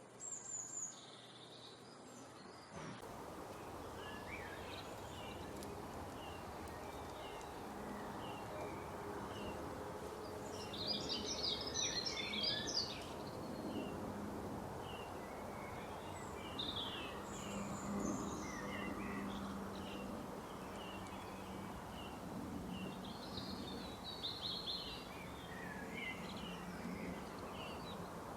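Small birds chirping: short, high notes repeated throughout, with a burst of rapid twittering about eleven to thirteen seconds in, over a steady low hum and background noise.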